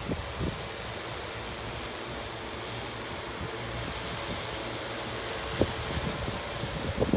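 DJI Agras crop-spraying drone hovering close by, its rotors giving a steady rushing whir, with a few low wind knocks on the microphone.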